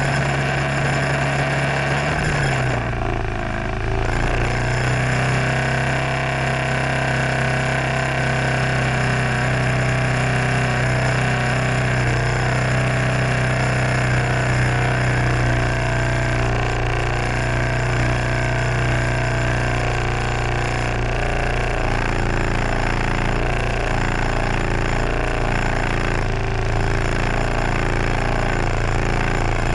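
Scooter engine idling at a standstill. Its pitch drops about three seconds in as it settles to idle, then it runs steadily.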